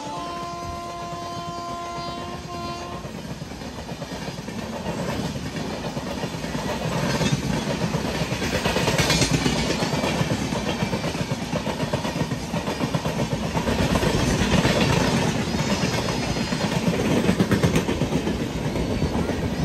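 Electric locomotive horn held in one long blast that cuts off about three seconds in, followed by the Netravathi Express's coaches running past at speed on the adjacent track: a loud rumble of wheels with rhythmic clattering over the rail joints, swelling after about seven seconds.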